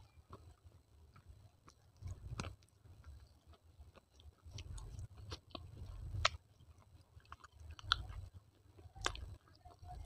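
Close-miked chewing of baked clay pieces: low muffled jaw thumps with a scatter of sharp crunches and clicks, the strongest about two, six, eight and nine seconds in.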